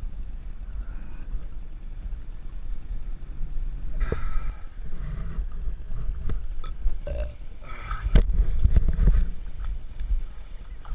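Uneven wind and water noise on an action-camera microphone out on the water, a low rumble with rushing surges about four seconds in and again around eight to nine seconds in, and a few sharp knocks.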